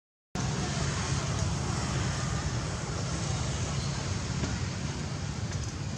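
A split second of dead silence at the start, then steady outdoor background noise with a low rumble and no distinct event.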